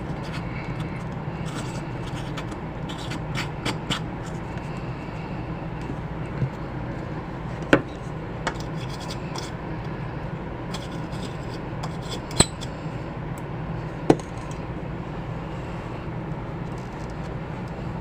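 Light bulbs being screwed into lamp sockets: glass rubbing and scraping in the holders, with a few sharp clicks and taps, over a steady low hum.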